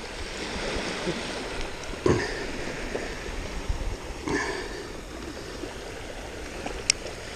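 Steady wash of small waves on a sandy beach, with two brief louder sounds about two and four seconds in and a short sharp click near the end.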